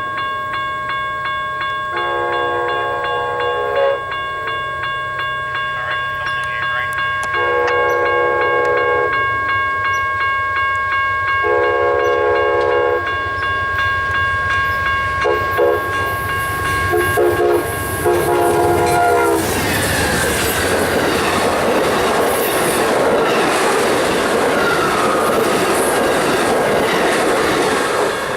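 GE P42DC locomotive horn sounding a crossing signal as the passenger train approaches at speed: three long chord blasts, two short toots, then a final long blast. The train then passes close by with loud wheel and rail noise and clickety-clack. A steady high ringing tone, typical of a level crossing warning bell, runs underneath throughout.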